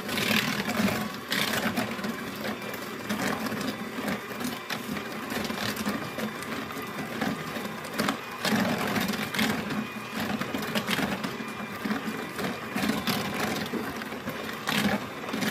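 Electric hand mixer running steadily, its beaters churning a thin batter of melted butter, sugar and vanilla in a bowl.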